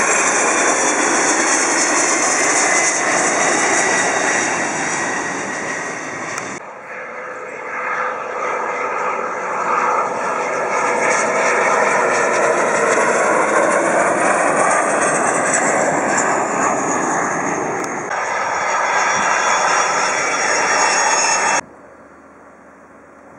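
Military jet aircraft passing low on landing approach: a turbofan roar with a high whine that falls in pitch as a Kawasaki T-4 trainer goes by with its gear down. The sound is cut abruptly by edits about 7 and 18 seconds in, and near the end it drops away to faint wind.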